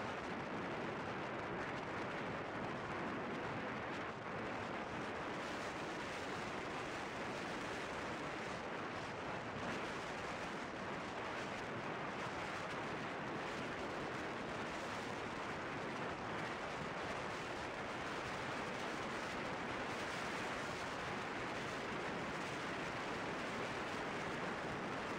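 Steady, even rush of wind buffeting a helmet camera's microphone on a motorcycle moving at highway speed.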